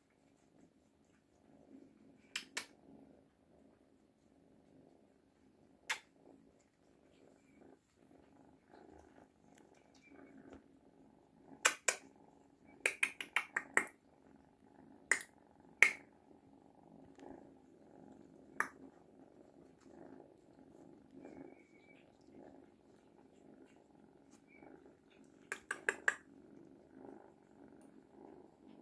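Cat purring steadily, with sharp clicks now and then, some in quick runs of four or five.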